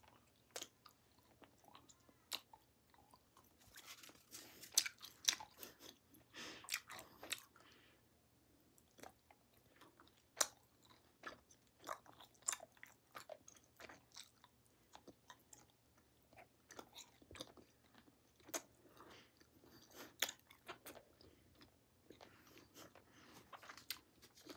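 Bubble Yum original bubble gum being chewed close to the microphone: quiet, irregular wet clicks and smacks of the mouth working fresh pieces of gum.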